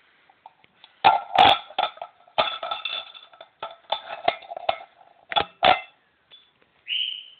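Empty ribbed steel tin can handled and knocked about in the hand, making a string of irregular clanks that each ring with a metallic tone, loudest about a second in. A short high squeak follows near the end.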